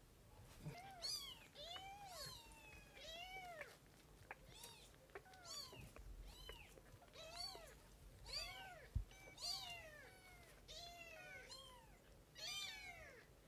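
Very young kitten mewing: thin, high calls that rise and fall in pitch, repeated about once a second.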